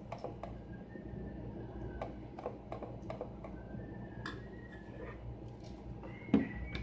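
A spoon clicking and scraping against a plastic food container and a plate while food is served onto rice: scattered light clicks, with one louder knock near the end.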